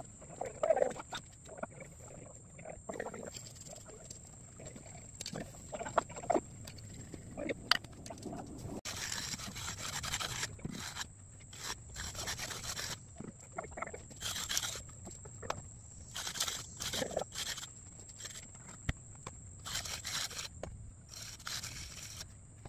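Repeated scraping strokes of hand work along the brick border of a freshly poured concrete slab, in separate bursts about a second long, more often in the second half.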